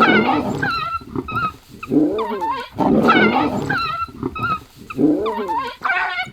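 An African wild dog caught by lions, still alive and crying out in repeated bouts of high, wavering yelps and screams of distress, with deeper growling calls mixed in.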